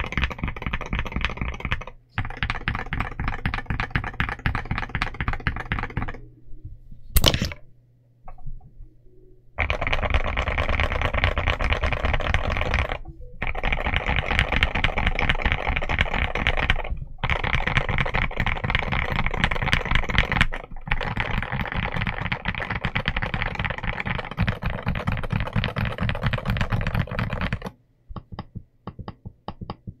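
Fast typing on an Akko MU02 wooden-cased mechanical keyboard fitted with Akko Rosewood switches and MOA dye-sub PBT keycaps: a dense run of key clacks, broken by several short pauses. One sharp knock, the loudest sound, comes in a longer pause about seven seconds in. Near the end the typing stops, leaving a few single key presses.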